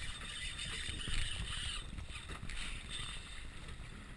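Choppy water sloshing and splashing against a small aluminium boat's hull, with wind rumbling on the microphone. No engine can be heard.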